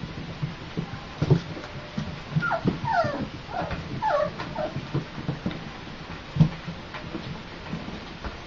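Flat-coated retriever puppies, nearly five weeks old, whimpering: a run of about six short falling whines a couple of seconds in, among scattered light knocks and thumps.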